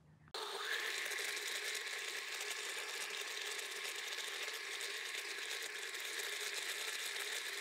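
Blendtec countertop blender starting up about a third of a second in and running steadily, churning a batter thickened with xanthan gum.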